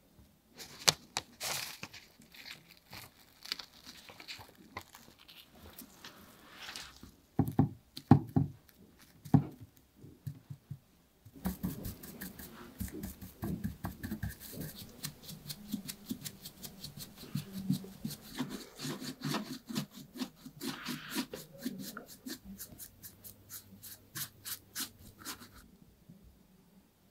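Brush bristles scratching and dabbing over gold leaf foil on a metallic shoe, the thin foil crinkling and flaking away. A few louder knocks come about a third of the way in, then a long run of quick, brisk strokes, several a second, that stops shortly before the end.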